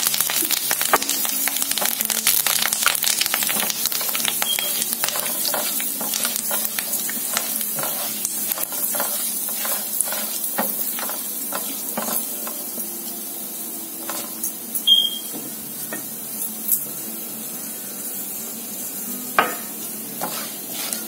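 Hot oil sizzling and crackling in a nonstick frying pan as fresh curry leaves fry with a tempering of dals, mustard seeds, cumin and dried red chillies, stirred with a silicone spatula. The sizzle is loudest at first and dies down gradually, with scattered pops and a few sharper clicks near the end.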